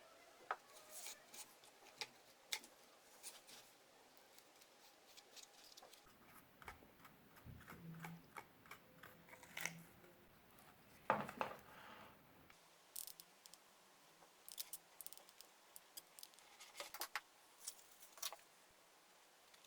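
Faint, irregular snips and clicks of scissors cutting cardboard, mixed with small handling knocks of craft pieces; the loudest knock comes about eleven seconds in.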